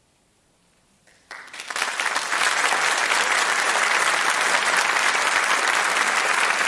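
Audience applause: about a second of silence after the final note, then clapping breaks out suddenly and swells to full, steady applause.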